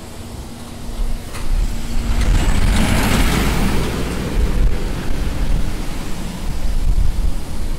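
A road vehicle passing close by: its noise swells to a peak about three seconds in, with a heavy low rumble that carries on.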